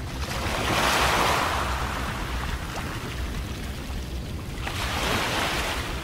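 Small waves washing in against an ice-crusted rocky shore: two surges of splashing hiss, one about a second in and another near the end, over a steady low rumble of wind.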